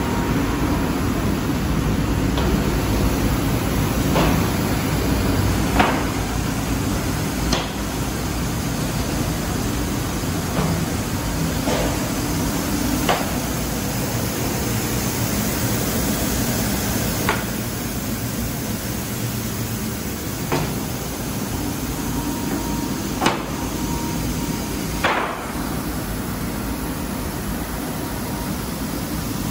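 Wide-belt sanding machine and its dust extraction running with a steady noisy hum, while wooden frames knock sharply every few seconds as they are handled.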